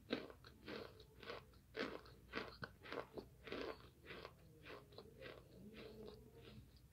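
A person chewing crunchy oven-baked starch chunks, a crisp crunch at each bite, about three a second, growing fainter toward the end.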